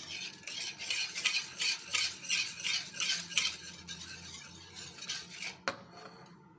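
Wire whisk beating a thin yogurt and gram-flour (besan) batter in a pan, its wires swishing through the liquid and clicking against the pan about three times a second, softer toward the end. One sharp tap near the end.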